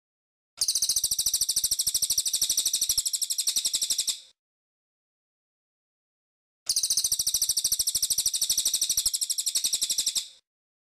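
Cililin song, as played for training caged songbirds: two long, very fast, high trills of evenly repeated notes, each about three and a half seconds, separated by a pause of a couple of seconds.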